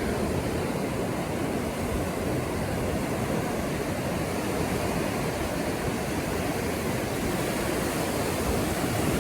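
Ocean surf: a steady, even wash of breaking waves on the shore.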